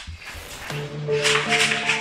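Background music comes in under a second in: held pitched notes over a rhythmic high percussion beat.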